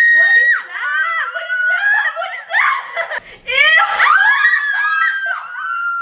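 Young women shrieking with laughter: long high-pitched squeals broken by bursts of giggling, with a long squeal that falls away near the end.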